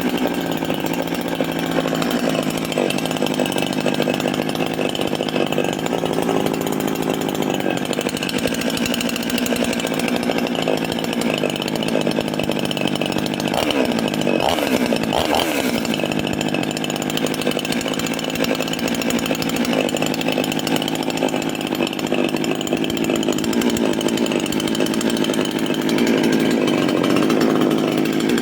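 Husky HKM5822 two-stroke chainsaw engine running steadily. Its pitch dips and rises briefly about halfway through, and it runs a little louder near the end.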